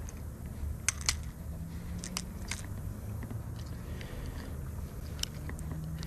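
Close handling noises as a caught sand bass and its lure are held and unhooked in gloved hands: a few sharp clicks, two close together about a second in and more about two seconds in and near the end, over a low steady rumble.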